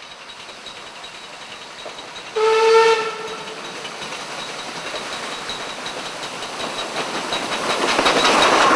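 A train approaching, with one short whistle blast about two and a half seconds in. The sound of the train then grows steadily louder as it draws near, loudest near the end.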